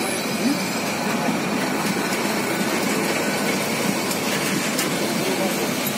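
Passenger train coaches rolling past on the track, a steady, even rumble of wheels on rails.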